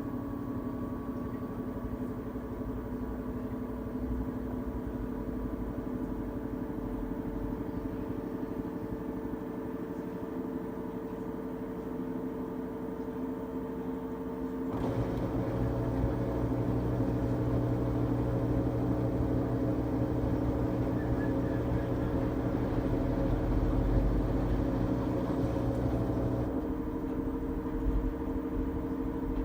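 LG Tromm WD-CR101C drum washing machine running a quick wash cycle, a steady motor hum. About halfway through it grows louder with a deeper hum for roughly twelve seconds, then settles back to the quieter hum.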